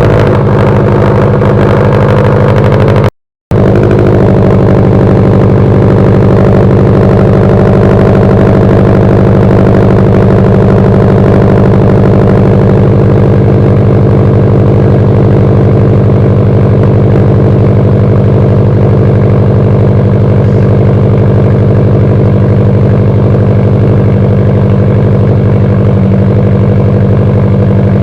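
2021 Subaru WRX STI's turbocharged 2.5-litre flat-four idling steadily and loudly through a freshly fitted straight-pipe Remark exhaust with no resonator or mufflers. The sound drops out completely for a moment about three seconds in.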